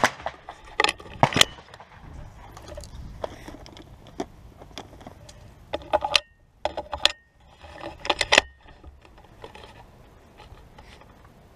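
Shotgun and shotgun shells being handled between shots: a scattered series of sharp clicks, knocks and metallic clatters, several loud ones near the start, with low wind rumble on the microphone.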